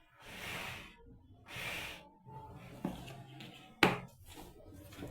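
Handling of a cordless drill's packaging: two rustling, sliding swishes, then a few light clicks and a sharp knock a little under four seconds in, like a plastic case or part being opened or set down.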